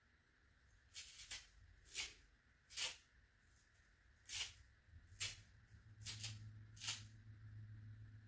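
Blue jelly sponge torn apart by hand: a string of short, separate ripping tears, about eight of them at uneven intervals.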